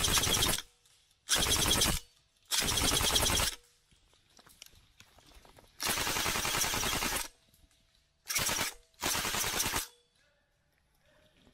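Airsoft rifle firing rapid full-auto bursts, a fast rattle of shots. There are six bursts of about half a second to a second and a half each, with a pause of about two seconds in the middle.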